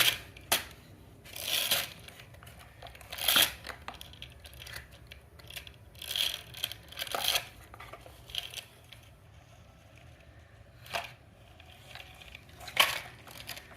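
Plastic toys being handled and moved by hand: scattered short scrapes, rustles and clacks, about one every second or two.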